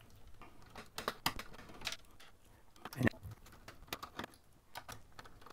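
A small screwdriver clicking against metal screws as several screws are undone from a hard-drive tray: scattered light clicks, the loudest about three seconds in.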